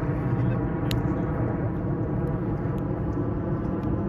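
Steady low outdoor rumble, like wind on the microphone or distant city traffic, with one sharp tap about a second in.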